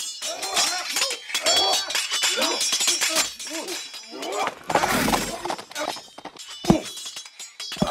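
Sword-fight sound effects: a rapid series of metal blades clashing and ringing, with two heavy thuds near the end.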